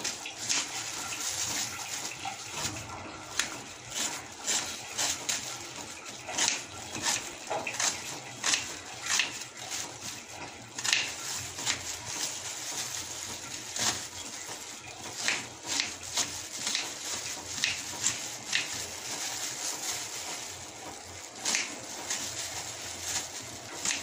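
Kitchen knife slicing a red onion on a wooden cutting board: irregular sharp taps of the blade on the board and the crunch of the onion, over a steady hiss.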